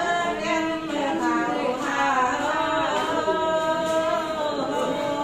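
Unaccompanied singing, with long held notes that bend from one pitch to the next.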